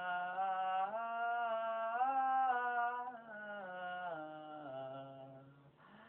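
A woman singing a slow melody in long held notes that step up and down in pitch, fading near the end.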